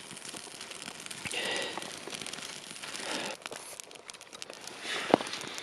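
Crinkling and rustling with scattered small clicks as birch bark and kindling are worked to light a campfire, with one sharp snap near the end.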